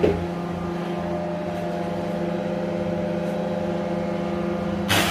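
A motor running with a steady, even hum, a short click at the start and another near the end.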